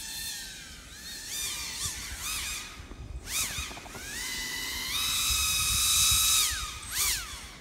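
Pro Boat Aerotrooper RC airboat on a 4S LiPo, its brushless electric motor and air propeller whining as the throttle is worked. There are several short revs that rise and fall in pitch, then a longer, louder run held at high pitch for about two seconds that drops away, and one more short rev near the end.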